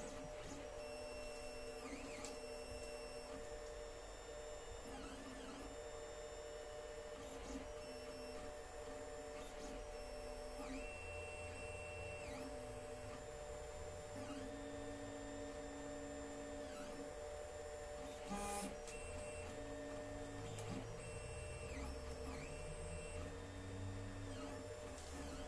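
Alfawise U10 3D printer printing: its stepper motors whine in short tones that change pitch with each move of the print head, over the steady hum of the print-head cooling fan. A short knock about eighteen seconds in.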